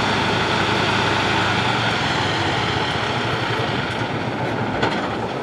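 A large engine running steadily at idle, its low hum easing off about two seconds in.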